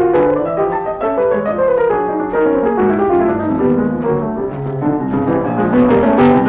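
Instrumental classical music, with piano prominent over lower bowed strings, playing many notes in quick succession.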